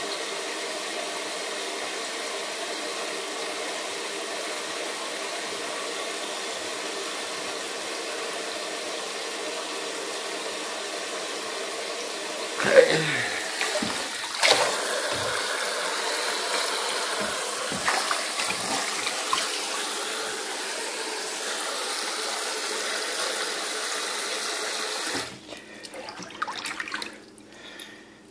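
Tap water running steadily into a stainless steel sink, with a few sharp knocks about halfway through. The tap is shut off near the end, leaving a few small splashes.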